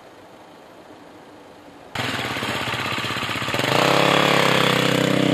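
Faint background for about two seconds, then an enduro motorcycle engine cuts in loud and, about a second and a half later, rises to a louder, steady high-revving note.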